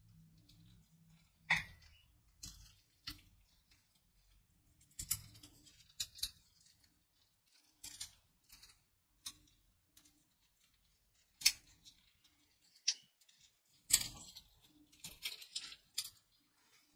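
Candy wrapper crinkling as gloved fingers unfold it from a small soft caramel cube: scattered sharp crackles with pauses between, a few louder ones, and a quick flurry near the end.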